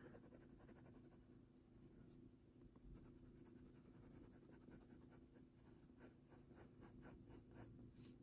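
Faint scratching of a Faber-Castell Polychromos coloured pencil on paper in short back-and-forth strokes, more frequent in the second half, over a low steady hum.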